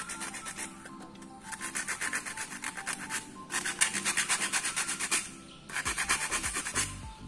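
Sandpaper rubbed by hand along the cut edge of a profile template sheet, in three bursts of quick back-and-forth strokes, smoothing the edge. Background music plays throughout.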